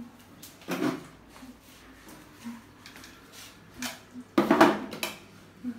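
Plastic things knocked and scraped about on a tiled floor as a toddler handles them: a short knock about a second in, then a louder, longer clatter a little past four seconds in.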